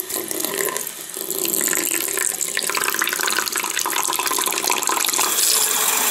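Tap water running in a thin stream onto a disposable nappy lying in a sink, splashing on the soaking padding. It gets louder about a second and a half in.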